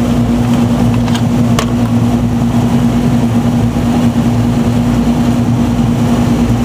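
Steady low electrical hum of running air-conditioning equipment, with two light clicks about a second and a half in.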